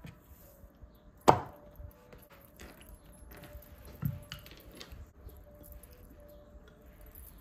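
Wooden rolling pin knocking on and rolling over a bamboo cutting board as pastry dough is rolled out: a sharp knock about a second in, a duller knock about four seconds in, and light clicks and rubbing between.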